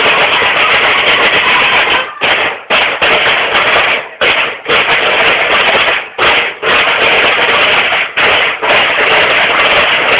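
Marching snare drums of a banda de guerra playing a loud cadence together, dense rolling strokes broken by short rests that come in pairs about half a second apart, roughly every two seconds.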